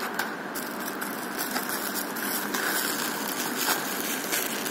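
Plastic packaging rustling and crinkling in short clicks as small parts and a bagged cable are handled in a foam-lined case, over a steady background hiss.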